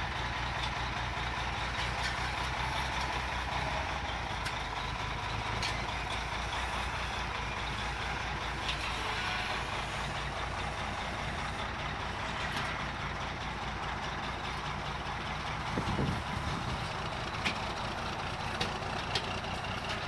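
Diesel engine of a mobile-home toter truck running steadily under load as it moves the house section, with a few sharp clicks and knocks near the end.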